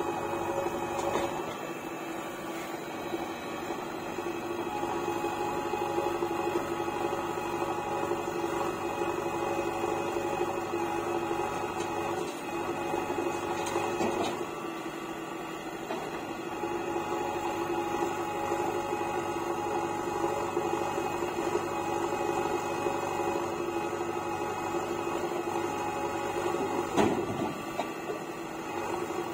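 JCB backhoe loader's diesel engine running steadily under load as it digs soil and swings to dump it into a tipper truck, with faint knocks now and then and one louder knock near the end.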